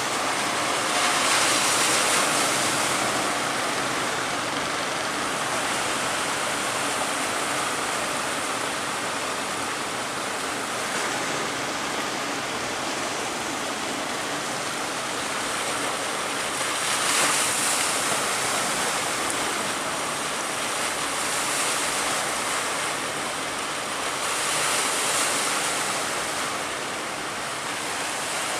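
Ocean surf: a steady rush of breaking waves, swelling louder several times as bigger waves crash.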